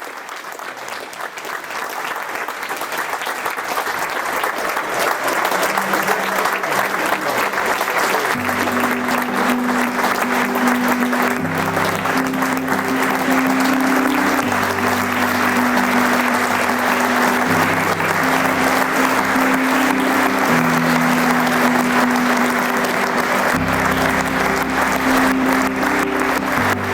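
A crowd applauding steadily, the clapping building over the first few seconds. Background music of held low notes comes in under the applause about eight seconds in.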